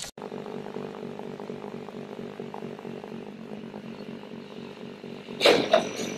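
A vehicle engine running with a steady, evenly pulsing note. About five and a half seconds in, a loud sudden crash-like burst comes, followed by a second smaller one.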